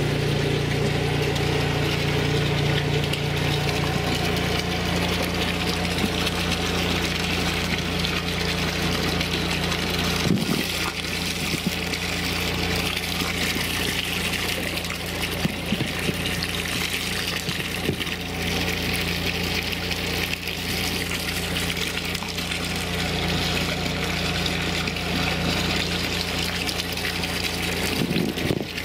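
Rainwater pouring from the inlet pipe through a knee-high pantyhose filter into a corrugated steel catchment tank: a steady rush and splash of falling water, with a low steady hum underneath.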